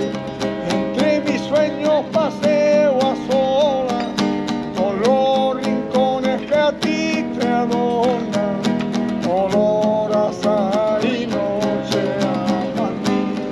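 Background music: a Spanish song with steadily strummed acoustic guitar and a wavering, vibrato-laden melody line.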